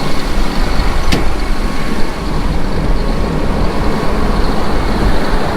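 Vehicle driving along: steady engine and road noise, with a single sharp click about a second in.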